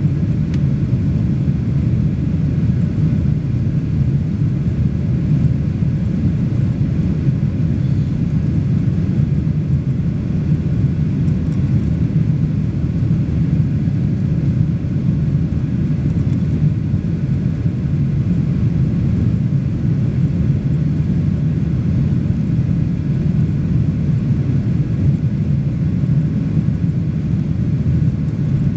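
Steady low rumble of a Boeing 737 Next Generation airliner's CFM56-7B engines and rushing airflow, heard from inside the cabin over the wing while the aircraft climbs after takeoff.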